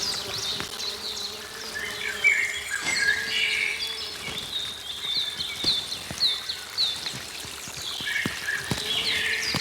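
Forest birds singing: a warbling phrase early on, then one bird repeating short, quickly falling chirps about twice a second, with other calls around them. A faint steady low hum runs underneath.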